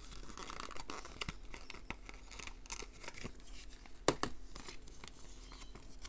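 Paper and cardboard packaging rustling and crinkling in the hands as a folded paper user manual is taken out of the box, with light clicks and one sharper tap about four seconds in.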